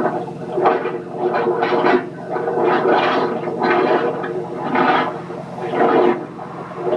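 A machine running steadily near a sewer manhole: a low pitched drone with a noisier layer that swells and fades irregularly.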